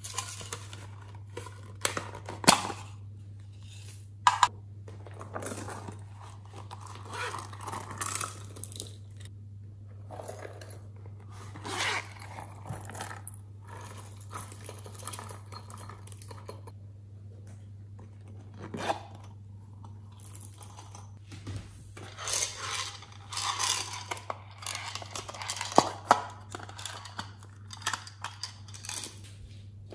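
Sequins, glitter and small plastic pearl beads poured and shaken from plastic containers onto slime in a glass dish: an irregular rustling patter with scattered sharp clicks from beads and plastic containers, over a steady low hum.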